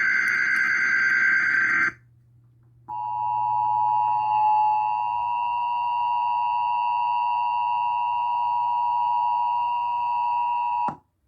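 Emergency Alert System tones. First comes the end of a screechy digital SAME header burst, lasting about two seconds. After a short gap, the two-tone EAS attention signal sounds as a steady, harsh dual tone for about eight seconds, then cuts off abruptly. Together they announce an emergency alert message, here a relayed tornado watch.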